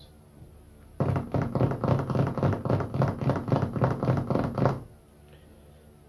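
Laptop keyboard being typed on fast, a run of sharp key taps about five or six a second lasting nearly four seconds: keying in a login.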